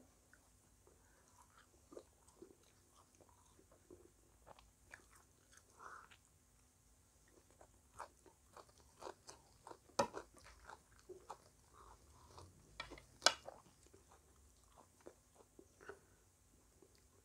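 Close-up crunching and chewing of crisp fried pastry, with scattered small crackles as pieces are broken off and bitten. Two sharper, louder crunches come about ten and thirteen seconds in.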